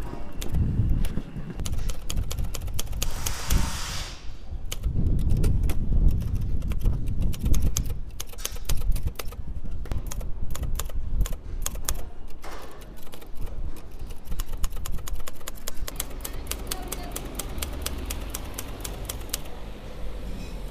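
Manual typewriter being typed on: a long run of quick, irregular key strikes. A low rumble sits under the clicks for the first several seconds, then fades.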